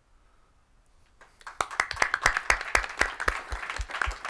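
Applause from a small group of people clapping, beginning about a second in, with individual hand claps standing out.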